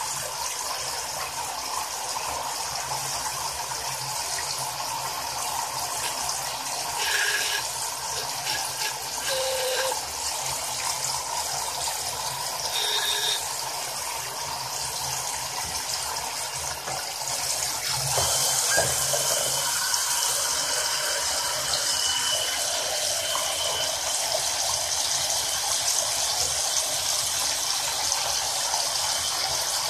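Water running and splashing in a filled sink. About eighteen seconds in it grows louder and a faint steady whine comes in as a mini 12 V DC brushless submersible water pump, powered from 5 V USB, runs under the water and churns it.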